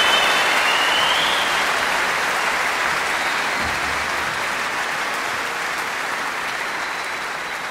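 Audience applauding at the end of a live song recording, slowly fading out.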